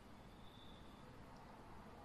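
Near silence: room tone, with a faint high whine lasting under a second near the start.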